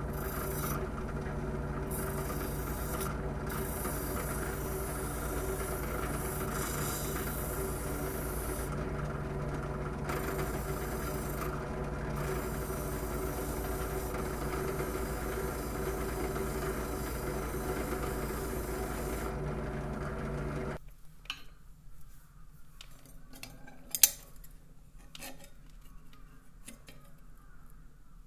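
Drill press running an abrasive wheel, with a rusty steel blade blank pressed against it to scour off the rust: a steady motor hum under a hissing scrub. The sound cuts off about three quarters of the way through, followed by light clicks and one sharp tap from handling the blank.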